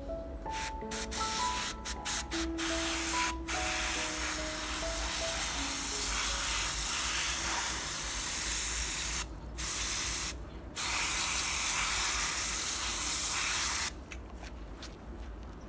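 Hand-pump pressure garden sprayer shooting a stream of water onto potting soil: a hiss in short spurts at first, then steady with two brief breaks, stopping near the end.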